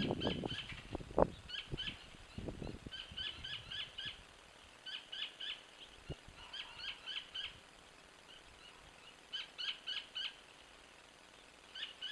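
A bird calling in short clusters of three to five quick, high notes, the clusters repeating every second or two. Rustling and a single sharp knock come in the first few seconds.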